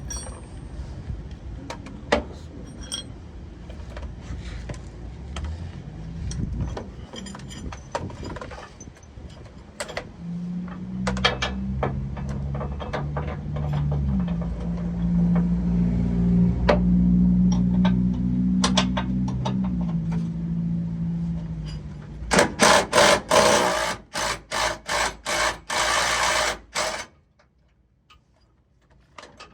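Power drill with a socket working on sway bar bolts: the motor runs for about ten seconds at changing speeds, then gives about ten short, loud bursts. Scattered clinks and knocks of tools and metal parts come before it.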